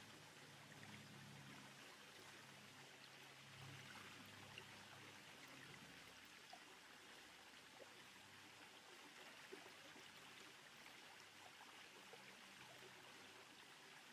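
Faint, steady rushing of a small waterfall, with a faint low hum during the first few seconds.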